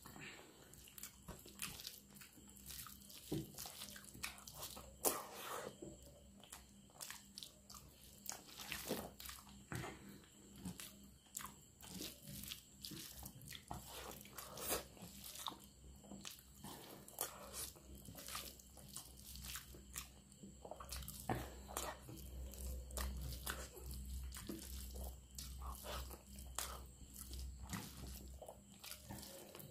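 Close-miked eating by hand: rice mixed with watery potato dal worked between the fingers on the plate, and mouthfuls chewed with a quick, irregular run of short wet mouth clicks.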